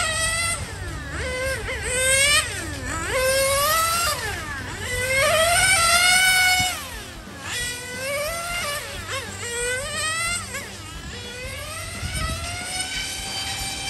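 A Serpent Viper 989 1/8-scale nitro RC car's small two-stroke glow engine making a high-pitched whine, revving up along the straights and dropping off into the corners, over and over.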